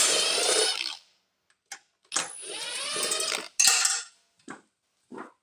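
Small electric power tool motor running in three short bursts, rising in pitch as it speeds up.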